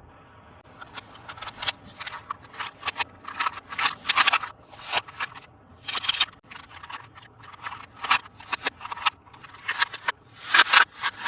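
Hands handling toy packaging: a quick, uneven run of short crinkling and scraping rustles, several a second, starting about a second in.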